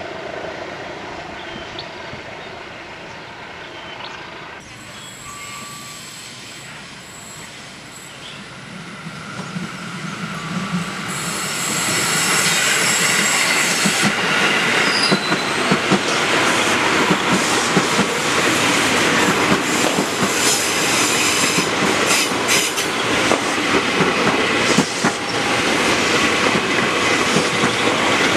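KRL Commuter Line electric multiple unit (ex-JR 205 series) passing close by. It builds up from about ten seconds in to a loud, steady run, with the wheels clicking over the rail joints.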